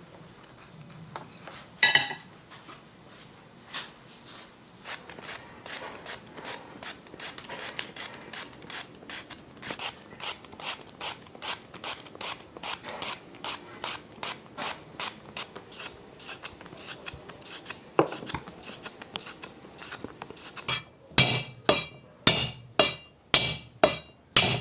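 Quick repeated clicks and scraping strokes, about two or three a second, with a single louder sharp click about two seconds in and a run of louder knocks near the end.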